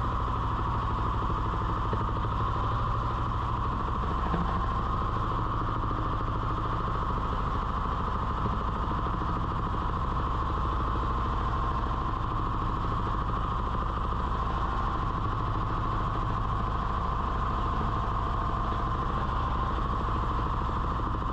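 Fishing boat's engine running steadily at an even speed, the boat under way.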